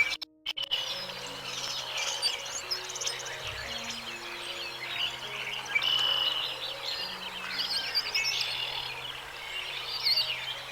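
Many small birds chirping and whistling at once, short overlapping calls at many pitches, over soft background music of low held notes. The sound drops out briefly right at the start.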